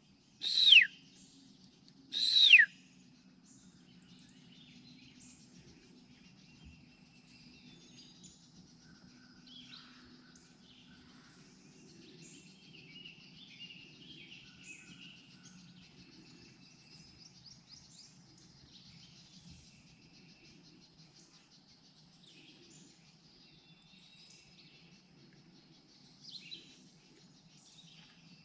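Two loud screaming calls from a bird of prey, about two seconds apart, each falling steeply in pitch. Faint songbirds chirp and twitter throughout, with a short louder call near the end.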